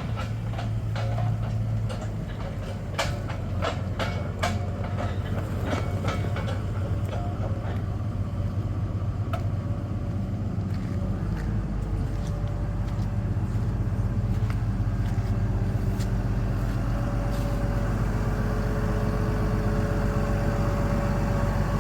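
Farm vehicle engine running steadily, with rattles and knocks in the first half; the low engine note grows stronger about halfway through.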